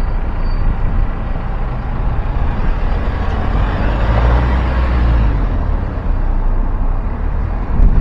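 Road traffic noise: a steady low rumble, with a vehicle passing that swells about four seconds in and fades again.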